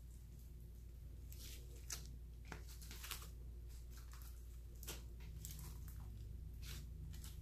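Hands squishing and stretching clear slime mixed with eyeshadow, giving faint sticky crackles and pops at irregular moments.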